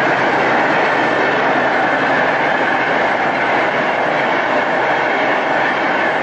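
Steady, loud rushing noise with no clear tone or rhythm.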